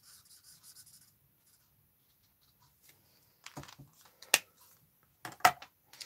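Stampin' Blends alcohol marker nib rubbing on cardstock in faint, quick strokes about five a second, stopping about a second in. Several sharp clicks follow near the end.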